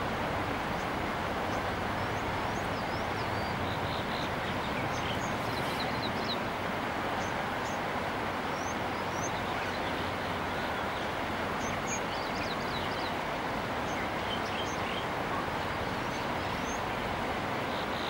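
Whitewater rapids of a rocky river rushing steadily, with small birds chirping now and then above the water.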